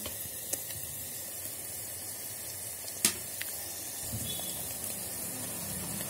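Onions, green chillies and ginger-garlic paste sizzling in hot oil in the pot of an electric kettle, a steady hiss, with one sharp click about three seconds in.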